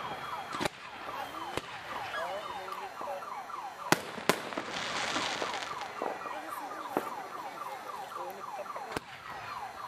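Fireworks display: aerial shells bursting with about six sharp bangs, the loudest pair close together near the middle. A burst of crackling stars follows about five seconds in, over a steady layer of short, repeated falling whistling tones.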